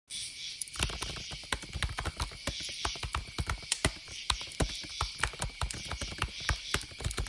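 Night ambience: a steady, high-pitched chorus of crickets with many irregular sharp clicks and crackles over it.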